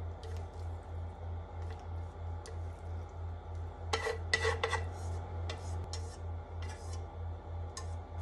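Chopsticks scraping and tapping against a pan while sauce and sliced leek are pushed out of it, with a quick rattle of ringing clinks about four seconds in, the loudest part, and scattered light clicks and scrapes around it.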